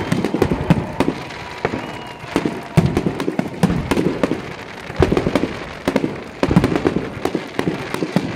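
Aerial firework shells bursting in quick succession, with many sharp bangs and crackling throughout.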